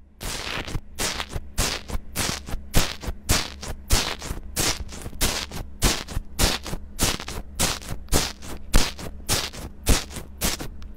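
Bubbly foam slime in a plastic tub being poked over and over with a metal-tipped tool, each press giving a crisp crackle, about three a second.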